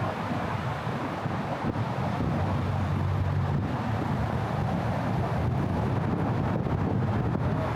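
Steady rumble of city road traffic, with wind buffeting the microphone.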